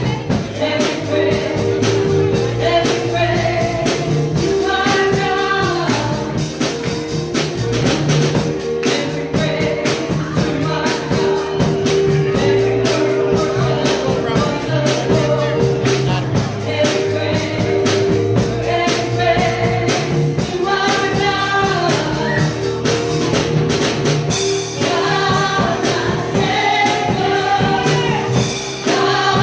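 Gospel praise music with singing over a fast, steady drum and tambourine beat and held keyboard chords.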